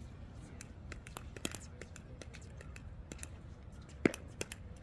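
Sharp pops of a paddle striking a plastic pickleball during a rally, one about a second and a half in and the loudest about four seconds in, over wind rumbling on the microphone and scattered light clicks.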